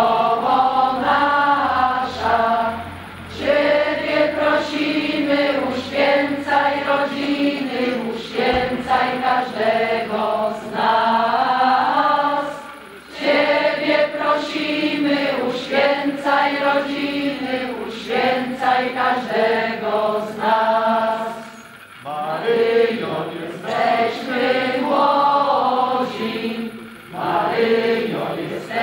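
A gathered crowd singing a Polish church hymn together, in long sung phrases with short breaks between them.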